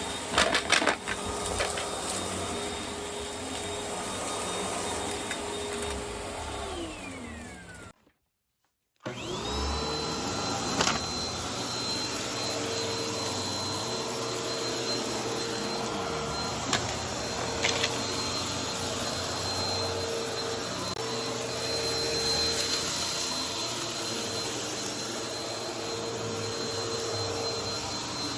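Vacuum cleaner running on carpet with a few sharp clicks. About seven seconds in its motor winds down and falls silent, then a second later a vacuum motor spins up with a rising whine and runs steadily.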